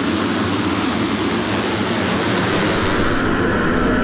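A full pack of motocross bikes revving hard together as they launch off the start gate, many engines blending into one dense, steady wall of engine noise.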